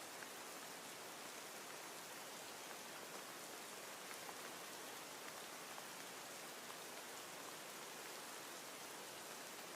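Steady, even hiss of falling rain with faint scattered drop ticks.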